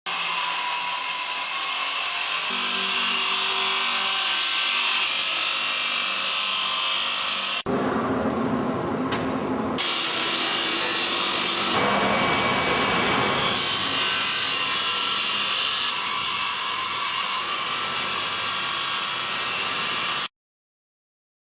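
Altai-004-SP timber-profiling machine running loudly, its cutters machining a wooden beam with a steady high-pitched whine and hiss. The sound changes abruptly about a third of the way in and cuts off shortly before the end.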